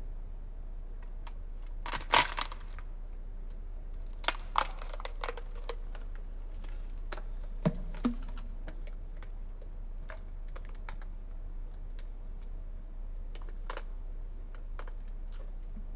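Eggshell cracking and crackling as it is slowly pulled apart by hand over a plastic bowl: scattered sharp cracks, the loudest about two seconds in, with more around four to five seconds and near eight seconds, over a steady low hum.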